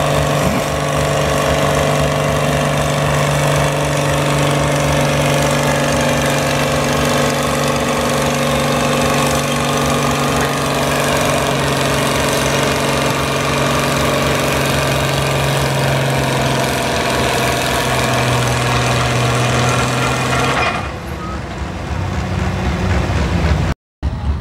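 Red International Harvester farm stock tractor's engine running flat out under heavy load as it pulls a weight-transfer sled: a loud, steady drone over a fast low exhaust beat. About 21 seconds in it cuts off, and a quieter engine of another tractor waiting at the sled takes over.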